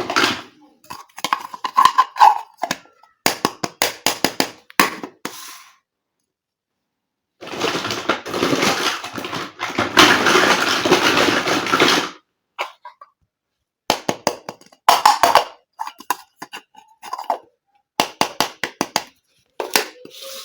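Small plastic toy kitchen pieces being handled, with quick clicks and taps as they knock together and are set down. In the middle there are a few seconds of continuous rustling, like packaging being handled.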